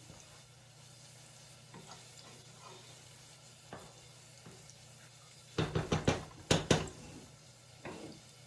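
A utensil knocking and scraping against a cooking pot of khichuri: a few soft clicks, then a quick run of loud clatters about two-thirds of the way through and one more knock near the end, over a faint low hum.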